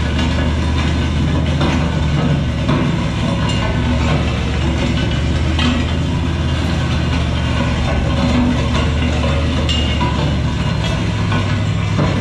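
Pickup truck engine running steadily as it tows a steel land plane down a dirt road. The plane's steel frame and tow chains scrape and rattle over the gravel, with a few sharp knocks.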